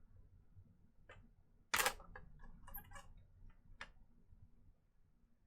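Small clicks and light rattles from the plastic and metal parts of a graphics card being handled during disassembly, with one sharp, louder click a little under two seconds in.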